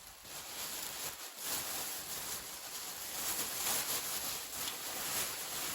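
A bag rustling and crinkling as items are handled and taken out of it, a steady rustle with many small crackles.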